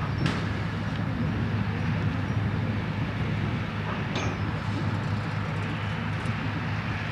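Liebherr LTM 1500 mobile crane's diesel engine running steadily at a low hum, with two short metallic clinks, one just after the start and one about four seconds in.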